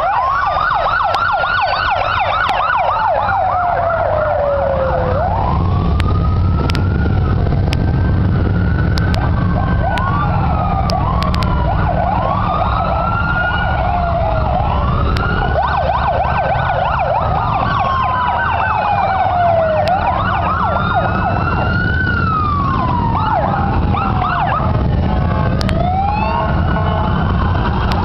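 Several sirens sounding at once, overlapping slow rising-and-falling wails and fast yelps, from the escort leading a motorcycle procession. Beneath them is a steady low rumble of the approaching motorcycle engines, which grows stronger a few seconds in.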